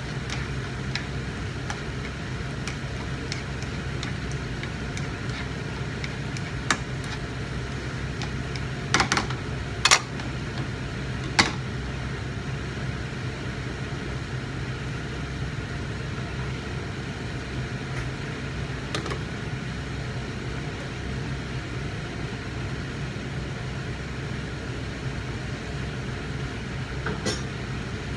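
Steady low hum of a kitchen range hood fan running over the stove. It is broken by a few sharp clinks and knocks of cookware, loudest about ten seconds in.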